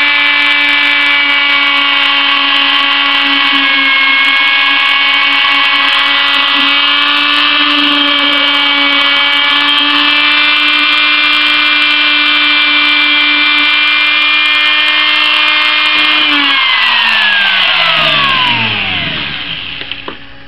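Dremel rotary tool spinning an abrasive-impregnated rubber polishing bit against the slot edge of an air-rifle pump tube, a steady high whine as it polishes the edge smooth. About sixteen seconds in it is switched off and its pitch falls as it spins down.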